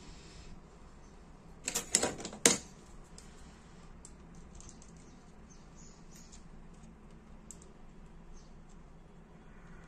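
A quick cluster of sharp metallic clicks and clatter about two seconds in, as pliers are taken up from the workbench. Faint scattered ticks follow as the pliers grip a small brass lighter refill valve.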